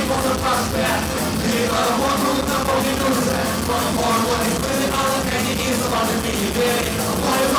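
Live rock band with electric guitars and trombone playing loudly, with a shouted, sung lead vocal over the band.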